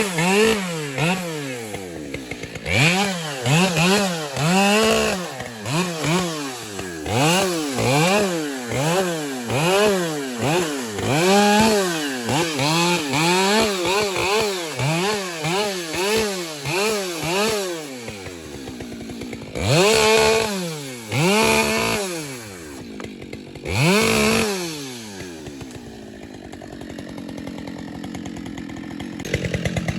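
Chainsaw limbing a felled tree: the engine revs up and drops back about once a second as each branch is cut. Later come a few spaced revs, then the saw settles to a steady idle near the end.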